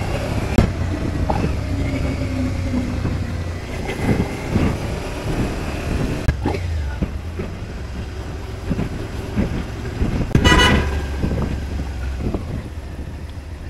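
Motorcycle engine running in city traffic, heard from the rider's position. A vehicle horn gives one short beep about ten seconds in.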